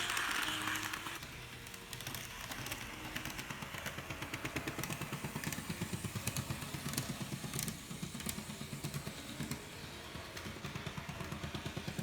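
N-gauge model train motor car with a TOMIX M-9 motor running, making a rhythmic clattering knock several times a second: the 'kotokoto' abnormal running noise whose cause is being traced in the drive.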